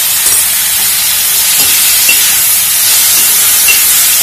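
Chopped tomatoes and onion frying in hot oil in an iron kadai, with a steady loud sizzle, while a slotted steel spatula stirs and scrapes through them.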